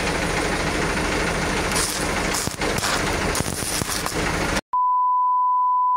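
Truck running with dense, steady engine and road noise that cuts off abruptly about three-quarters of the way through, replaced by a single steady high-pitched electronic beep tone.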